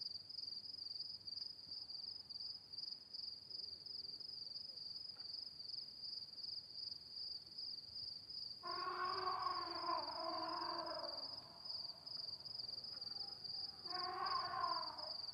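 Crickets trilling steadily at a high pitch through the night air. Over them, a drawn-out, howl-like animal call rises about nine seconds in and lasts a couple of seconds, then comes again more briefly near the end.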